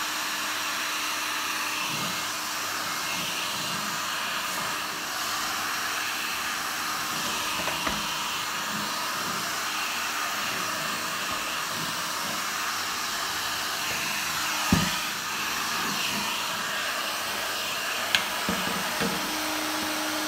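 Handheld Parkside heat gun blowing hot air steadily over a thick acrylic sheet to soften it for bending: an even rushing blow with a low hum underneath. A couple of short knocks come in the second half.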